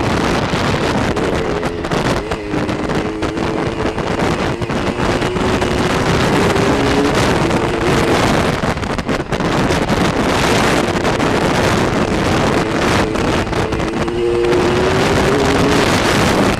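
Kawasaki KDX 80 two-stroke dirt bike engine running under throttle while riding, its pitch climbing and dropping back several times, with heavy wind rush on the microphone.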